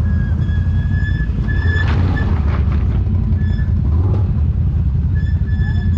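ATV engine running steadily at low speed, with a thin high-pitched whine that comes and goes and a few brief scraping knocks in the middle.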